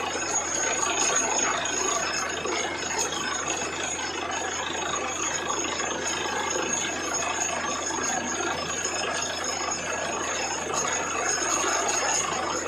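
Truck-mounted borewell drilling rig running while it drills: a steady, dense mechanical noise from its engine and drilling gear, with a thin high whine held over it.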